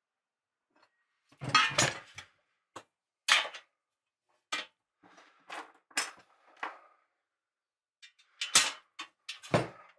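Pieces of a black painted steel burner stand knocking and clinking together as they are handled and fitted: about a dozen irregular metal clanks, the loudest about one and a half seconds in and again near the end.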